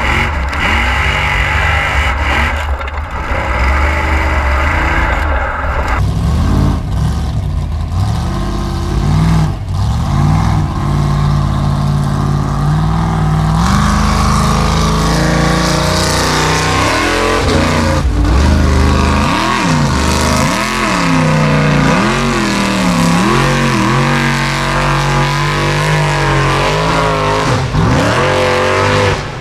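Formula Offroad unlimited-class buggy's engine revving hard, its pitch rising and falling over and over as it claws up a steep dirt hill.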